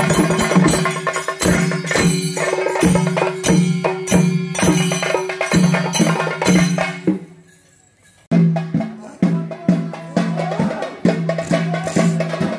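Theyyam ritual percussion: chenda drums beaten with sticks in a fast, steady rhythm. The sound fades out about seven seconds in and starts again abruptly a second later.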